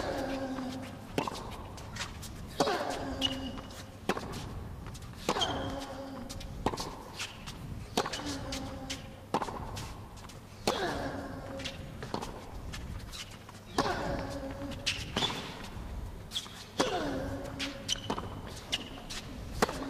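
A tennis rally on an indoor hard court: a racket strike or ball bounce about every 1.3 s. On every other shot a player gives a short grunt that falls in pitch.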